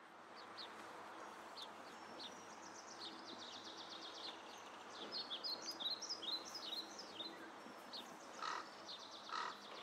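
Many small birds chirping and singing over a steady background hiss, with two short, lower calls near the end.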